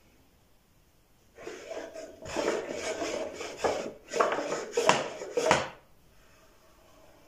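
Small wooden drawers of a handmade cabinet sliding in and out, wood rubbing on wood, with several sharp knocks as the drawers reach their stops or shut. It starts about a second and a half in and stops shortly before the end.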